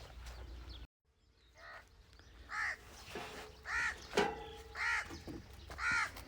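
A crow cawing in a steady series, about one caw a second, four or five caws starting about two seconds in.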